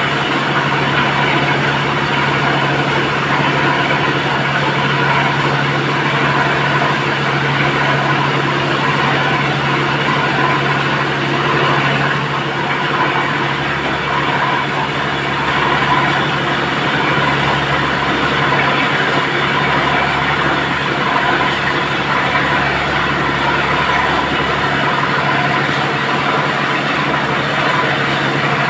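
Tractor-mounted borewell drilling rig running at a steady, even pitch, its diesel engine holding one note over a continuous rush of water spraying up out of the bore around the drill pipe.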